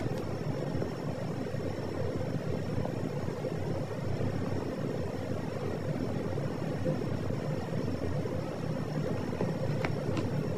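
Tabby kitten purring: a steady low rumble while it is stroked with its eyes closed.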